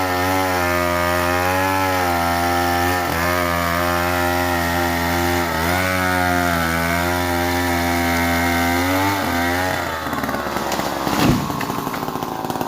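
Chainsaw cutting angsana wood, the engine running steadily under load, its pitch sagging briefly a few times. About ten seconds in, the steady note breaks into a rougher, noisier sound, with one sharp loud knock a moment later.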